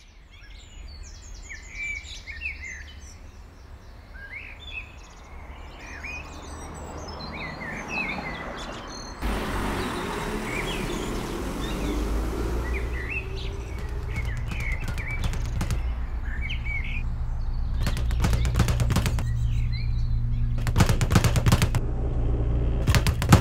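Birds chirping and twittering, with a low steady hum swelling up from about nine seconds in. In the last several seconds, bursts of fast, evenly spaced rattling clicks come in and grow louder.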